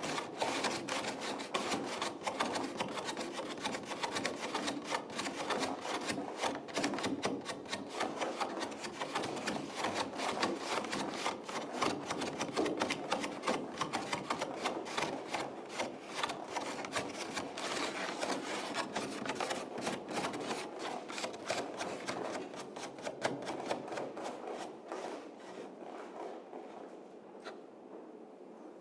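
Dense scratchy rubbing and scraping with rapid, irregular clicks, played as an extended-technique texture in a contemporary chamber piece, thinning out and fading over the last few seconds.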